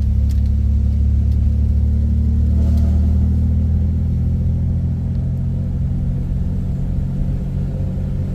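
Vehicle engine and tyre noise heard from inside the cab while driving along a dirt road: a steady, loud low drone.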